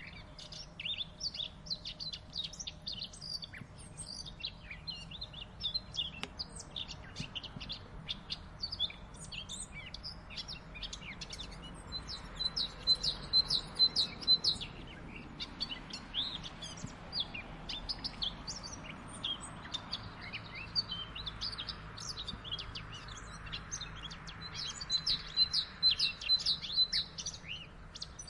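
Eurasian blackcap singing: a dense stream of quick, varied chirps. Twice, about twelve seconds in and again near the end, comes a fast run of evenly repeated notes on one pitch, over a faint low background rumble.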